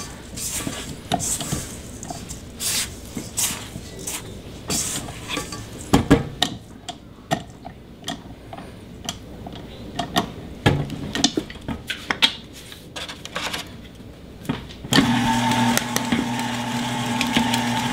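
Silicone spatula scraping around a stainless steel mixer bowl and through thick brownie batter, with occasional sharp knocks against the bowl and whisk. About fifteen seconds in, a KitchenAid stand mixer starts up and runs steadily, its wire whisk beating the batter.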